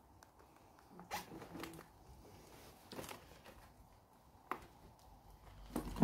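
A quiet room with a few faint, scattered knocks and rustles, about 1, 3 and 4.5 seconds in: someone moving about among debris on the floor.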